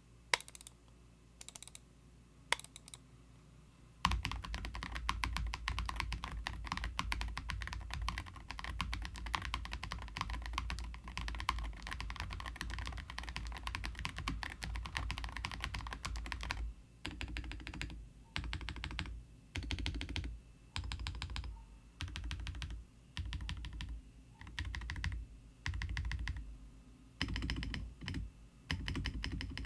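Mechanical keyboard fitted with Akko Botany linear switches being typed on: a few single key presses, then about four seconds in a long run of fast continuous typing, then typing in short bursts with brief pauses between them.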